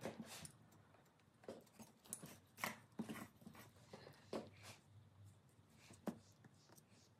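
Faint, irregular scrapes and clicks of a hand tool burnishing two layers of leather, glued with contact adhesive, together so they bond.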